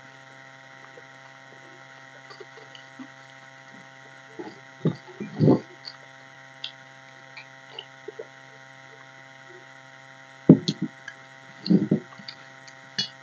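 Gulps of water drunk from a glass mug, and mouth sounds of eating, over a steady electrical hum. A sharp knock comes about ten and a half seconds in, as the glass is set down on the table.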